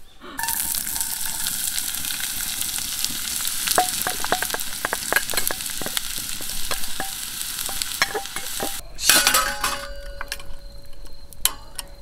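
Chopped onions sizzling and frying in a cast-iron pot over a wood fire, with scattered clicks of stirring against the pot. The sizzle cuts off about nine seconds in, giving way to a quieter stretch with a few ticks.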